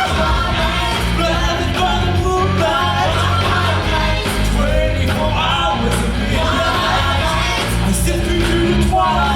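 Rock and roll song with a singing voice over a steady bass and drum beat.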